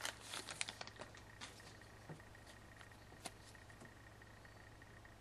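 Hockey trading cards from a just-opened foil pack being handled: light crinkling and clicks that fade within the first second, then a few faint ticks as the cards are flicked through, over a low steady hum.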